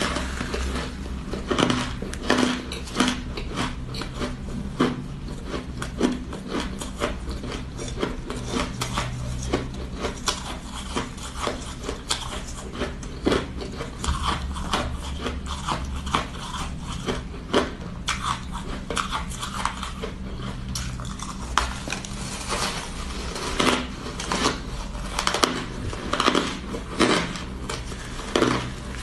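Close-up crunching and chewing of frost-covered ice chunks: a steady, irregular run of crisp crackling crunches, louder and more spaced out near the end.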